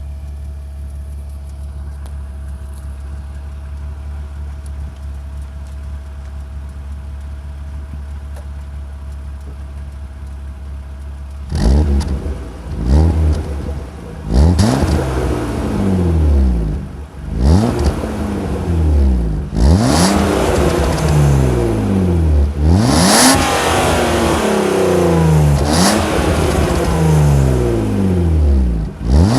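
BMW E36 325i's 2.5-litre straight-six with its stock exhaust: it idles steadily for about eleven seconds. It is then revved again and again in quick blips, each rising sharply in pitch and falling back.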